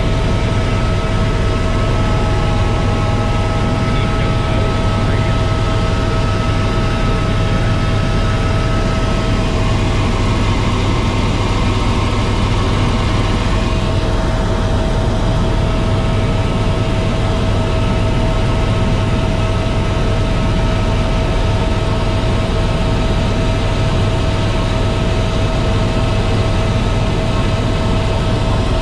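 Helicopter turbine and rotor running steadily, a deep constant rumble with a steady high whine over it.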